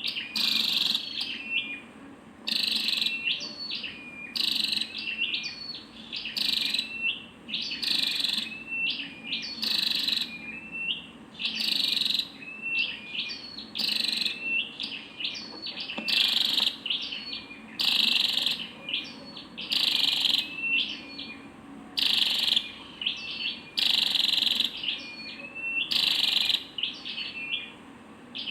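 Female red-headed flowerpecker calling over and over. Each phrase has sharp, high chips followed by a few short clear notes that flick upward, repeating about every one to two seconds in a steady rhythm.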